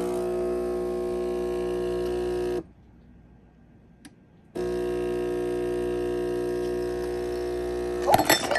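Cyetus espresso machine's pump buzzing steadily as it pushes water through the portafilter, stopping about two and a half seconds in and starting again two seconds later. Near the end a louder, irregular burst of noise breaks in as the portafilter, not locked into the group head, lets go and the brew goes wrong.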